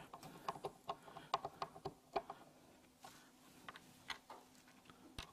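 Faint, irregular small clicks and ticks of screws being turned with a Phillips screwdriver and set by hand into the round base plate of a Dobsonian telescope mount.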